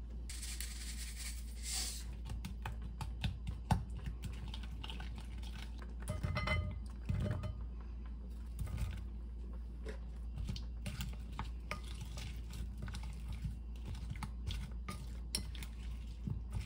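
Wooden spoon clicking and scraping against a glass mixing bowl as sliced cucumbers and onion are tossed in a gochujang-based dressing, with a cluster of louder knocks in the middle. There is a short hiss of liquid pouring into the bowl near the start.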